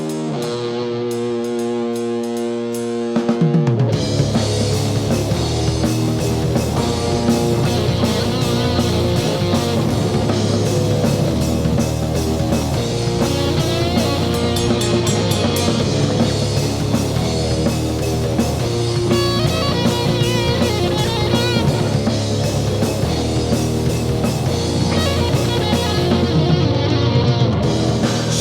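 Rock band instrumental intro: a guitar plays alone for about three seconds, then drums, bass and electric guitar come in together and play on steadily.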